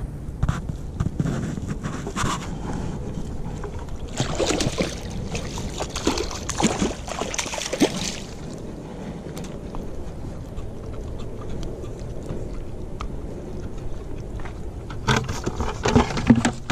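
A hooked striped bass thrashing on the line in shallow water, splashing hard for several seconds, with knocks and scraping from handling on the rocks around it and a few louder knocks near the end.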